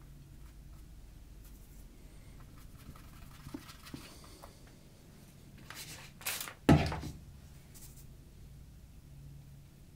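A paintbrush brushing and scratching lightly on watercolour paper, then a sudden loud knock with a low thump about six and a half seconds in.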